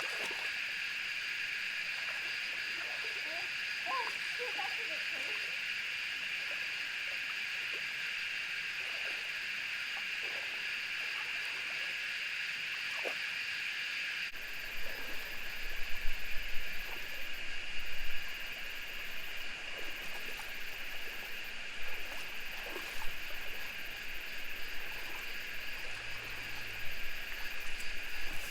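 Shallow river rushing steadily over rocks. About halfway through, uneven louder splashes and knocks join in, with a low rumble underneath.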